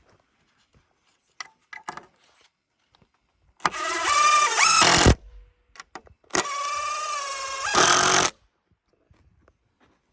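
Power drill driving screws into wood in two runs of about one and a half and two seconds, the motor's pitch climbing just before each run stops. A few light clicks come before the first run.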